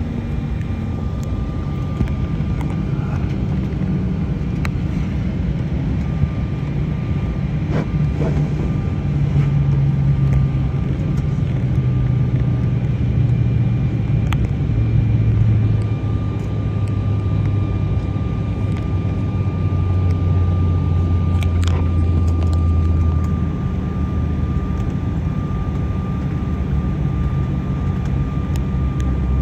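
Jet airliner taxiing after landing, heard from inside the cabin: a steady low engine rumble with a low hum that slowly falls in pitch, and a thin steady whine above it.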